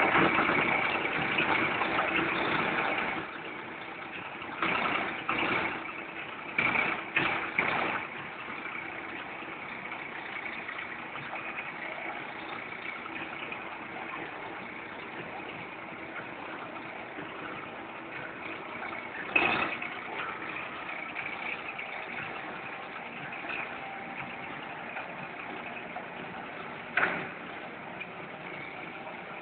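Liquid filling and packaging machine running with a steady mechanical hum, louder for the first few seconds, with short louder bursts of machine noise a handful of times.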